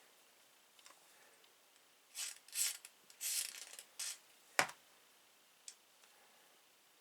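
Small Zippo folding pocketknife being worked on its pivot, with several short scraping swishes and then a sharp click about four and a half seconds in, a smaller tick following. This is the blade being worked to spread fresh oil into the pivot.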